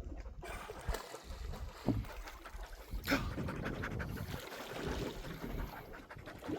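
Australian Kelpie panting over a low rumble of wind and water around the boat, with a stronger breathy puff about three seconds in.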